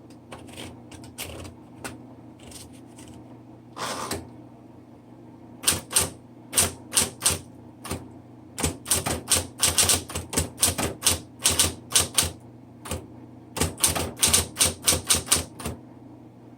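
Smith Corona Electra 110 electric typewriter being typed on: its type bars strike the platen with sharp clacks over a steady motor hum. There are a few scattered strikes at first, then quick runs of keystrokes from about six seconds in.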